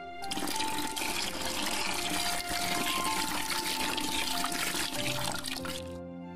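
Liquor pouring in a heavy steady stream into a large glass jar of tussah silkworm moths and pupae, splashing and foaming as the jar fills; it starts just after the beginning and cuts off shortly before the end. Soft background music runs underneath.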